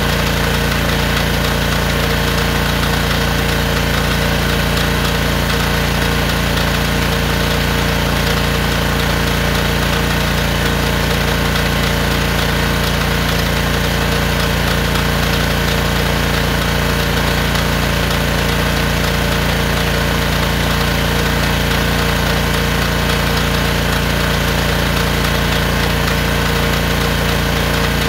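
Honda engine of a gas pressure washer running steadily at one unchanging speed, driving the pump of a homemade hydro jetter while it jets a drain.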